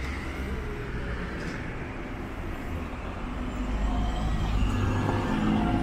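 Street traffic: car and other motor vehicle engines running past, growing louder about four seconds in.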